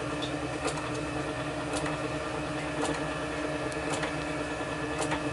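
A steady mechanical hum made of several steady tones, with faint sharp clicks about once a second.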